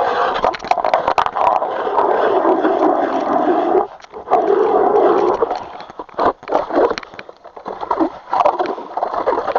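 Footsteps crunching through snow on lake ice, with a run of steady crunching followed by shorter, uneven steps.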